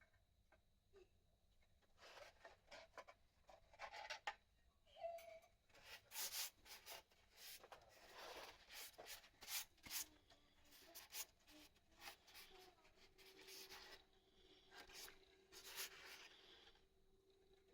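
Faint, irregular scraping and rubbing strokes of hand work on a surface, in busy runs through the middle and easing off near the end.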